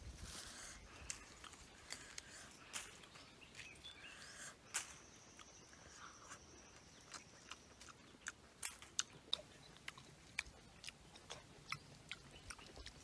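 An orange being peeled by hand and eaten: soft tearing of the peel, then chewing and biting with many sharp, irregular clicks and crackles.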